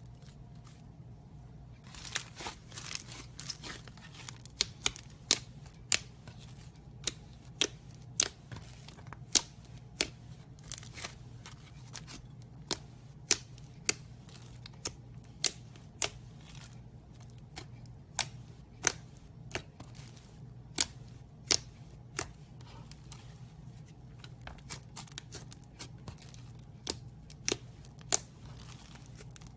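Slime being squeezed and stretched, giving sharp, irregular popping clicks about one or two a second as air pockets burst, over a faint steady low hum.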